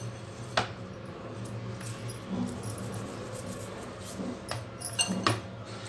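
Hands working a ball of soft maida dough in a glass bowl: quiet handling noise over a steady low hum, with a few light clicks against the glass, one about half a second in and two close together near the end.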